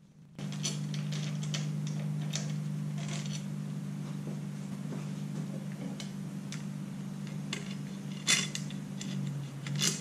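Scattered knocks and clatters of a motorcycle handlebar, with its levers, switch housings and cables still on, being handled and lifted off its clamps, the sharpest knock near the end. A steady low hum sits underneath.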